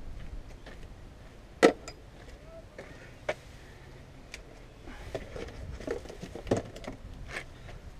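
Scattered sharp knocks and clicks from hand tools working on the car. The loudest is a single sharp knock about one and a half seconds in, and a loose cluster of smaller clinks comes in the second half.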